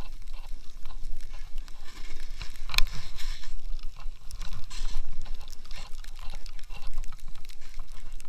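Steady hiss and spray of a rider sliding and turning through deep powder snow, with wind buffeting the handheld action camera's microphone as a low rumble. A sharp click about three seconds in.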